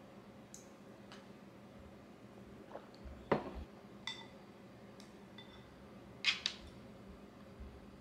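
Wooden chopsticks and ceramic tableware clinking and tapping while someone eats: a scattering of light knocks and clinks, the loudest a little over three seconds in and a quick pair just past six seconds.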